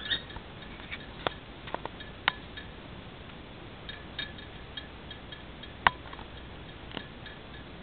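Metal chains and fittings of a hanging rope-ring perch clinking and tapping as an African grey parrot climbs and shifts on it: a scattering of sharp clinks, some ringing briefly, the loudest about six seconds in.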